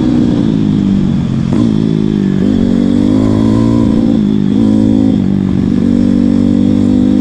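Pit bike engine running under load on a ride, its revs dropping and climbing back a few times, freshly re-carburetted to an air-fuel ratio of about 14:1.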